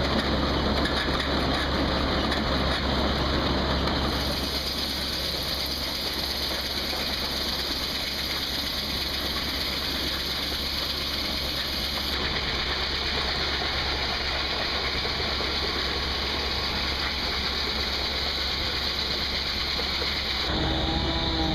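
Old-time sawmill running while lumber is milled: a steady mechanical din of machinery and gearing over a low engine hum, easing slightly about four seconds in.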